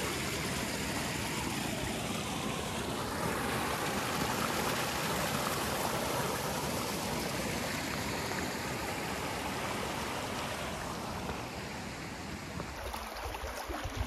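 Shallow rocky brook rushing and trickling over stones close by, a steady flow of water that eases a little near the end.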